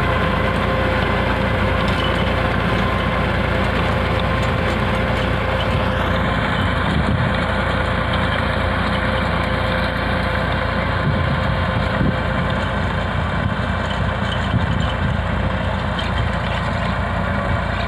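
Tractor diesel engine running steadily under load while driving a rear-mounted rotavator that tills the soil.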